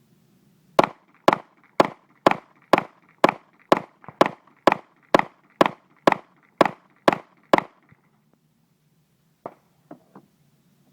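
Glock 19 9mm pistol fired fifteen times in steady succession, about two shots a second, then a few faint, sharper clicks or pops near the end.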